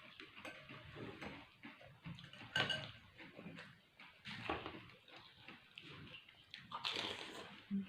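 People eating pani puri fast: the filled puris crunching and the spiced water being slurped, with chewing, in irregular bursts; the loudest is about two and a half seconds in.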